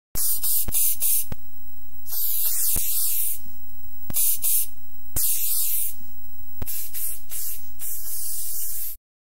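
Aerosol spray paint can hissing in a series of short and longer bursts, with sharp clicks between them.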